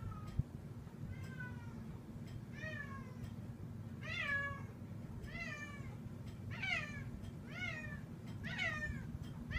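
A cat meowing over and over, short calls that fall in pitch, about one a second and getting louder. Underneath is the steady low hum of a 1966 Dominion box fan's steel blades coasting down after being switched off.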